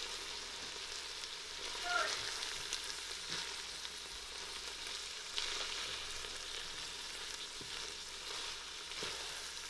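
Ground meat sizzling steadily in a nonstick pot as it browns, stirred with a wooden spatula that scrapes lightly against the pan now and then. A brief squeak about two seconds in.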